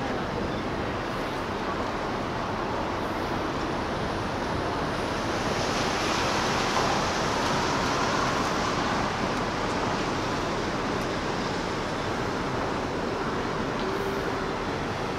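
Steady rushing harbourside noise, with no single distinct source standing out. It swells for a few seconds from about six seconds in.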